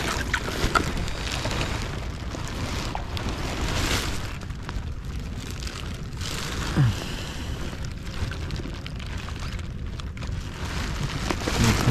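Wind buffeting the camera microphone in open air over the water: a rumbling noise that swells and eases in gusts, with a short falling tone about seven seconds in.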